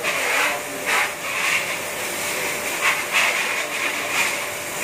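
Water jets of an automatic bike wash spraying: a steady hiss with irregular louder surges, over a faint steady hum.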